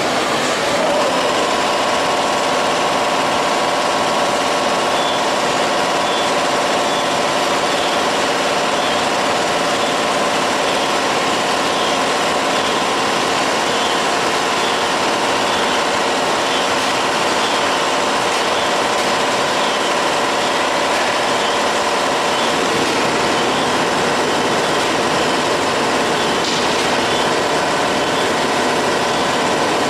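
Automatic powder packaging machine running steadily: a continuous mechanical hum with a faint, evenly repeating tick from its working cycle.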